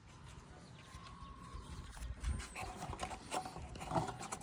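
Light clicks and knocks of hands handling the liftgate's plastic trim and rubber wiring boot, scattered through the second half after a quiet start.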